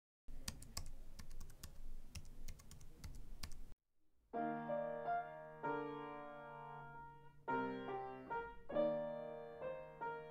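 Computer keyboard typing, a run of key clicks lasting about three and a half seconds, then a short break and piano music with held chords.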